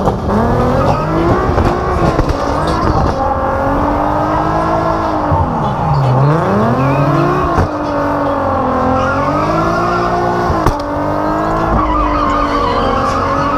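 Car engine revving up and down hard through a drift, its pitch dropping deeply about six seconds in and then climbing again, with tyres squealing as the car slides.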